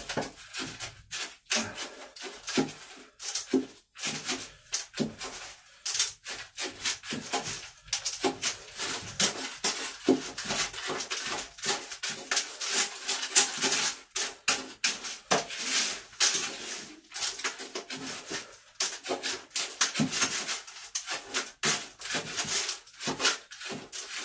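A hand scoop scraping and digging through gritty potting compost in a galvanised metal bucket, in a quick, irregular run of strokes.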